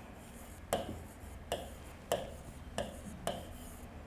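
Marker writing on a board: a sharp tap each time the tip meets the surface, about five in four seconds, with faint scratching of the strokes in between.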